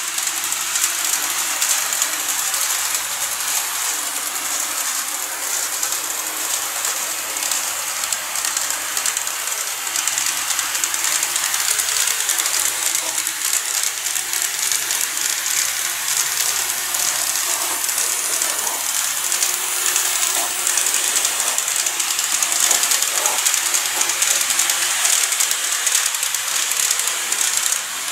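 KATO N-scale 381-series model train running along the layout track: a steady, high hissing rattle of small wheels on the rails, with the faint hum of the motor car.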